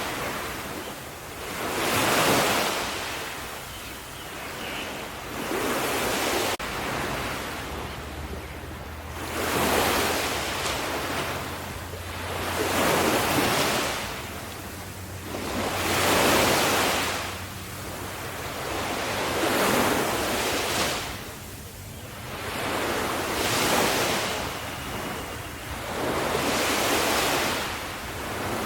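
Ocean waves breaking on the shore in a steady series of surges, one rising and falling wash about every three to four seconds.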